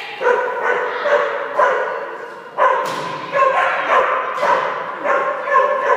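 A dog barking repeatedly, about once or twice a second, each bark echoing in a large hall.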